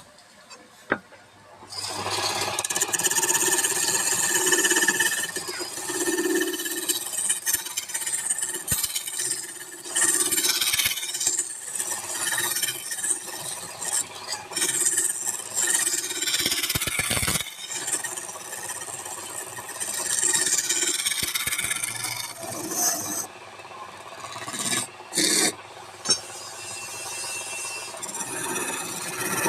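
Wood on a lathe being scraped and rubbed by a tool, a continuous rasping with an occasional squeal and a few brief pauses.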